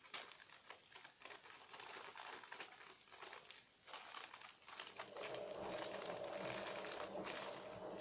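Crinkling and rustling as squishy toys are handled, a run of small irregular crackles. About five seconds in, a steady droning tone comes in underneath.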